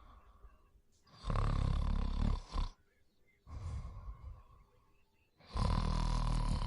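A person snoring in their sleep. There are two loud snores, each about a second and a half long and roughly four seconds apart, with a softer breath between them.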